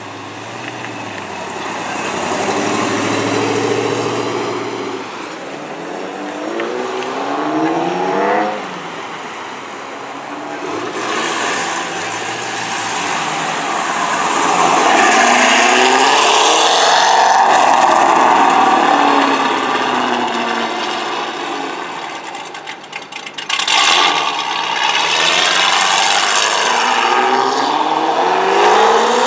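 V8 performance cars pulling away and accelerating. A De Tomaso Pantera's V8 passes first. Then a second-generation Cadillac CTS-V's supercharged 6.2 L V8 revs and accelerates hard, its pitch climbing again and again through the gears, loudest about halfway through.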